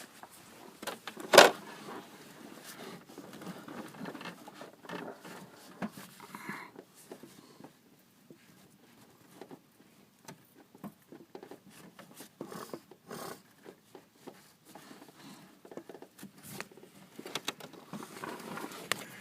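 Handling noise: scattered small clicks and rustles of parts and tools being handled by hand, with one sharp click about a second and a half in.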